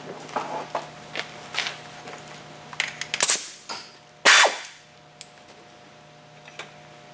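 Hand tools and metal car parts clinking and knocking during work under the hood, with two louder metallic clanks a little past the middle, over a steady low hum.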